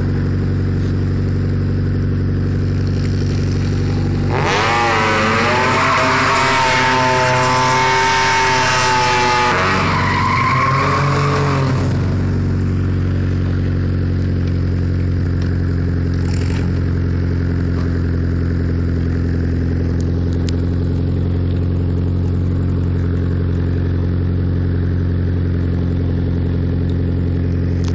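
BMW E30's engine running with a steady drone as the car circles, with a loud tyre squeal from about four and a half to twelve seconds in that wavers in pitch.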